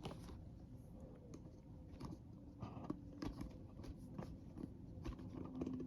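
Faint handling noises of unboxing: scattered light clicks, taps and soft rustles of paper and packaging being moved about.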